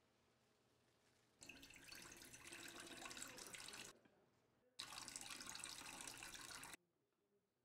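A thin stream of liquid poured into a stainless steel bowl of kimchi seasoning, in two pours of about two seconds each with a short pause between; the second is green plum syrup (maesil-aek).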